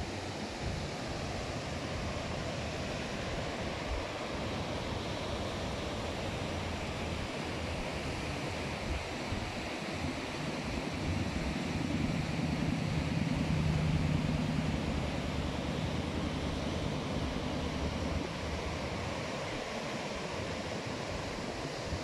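Steady rushing noise of falling water and wind on the microphone. It grows louder about halfway through, with a low hum underneath, as the Langfoss waterfall comes close.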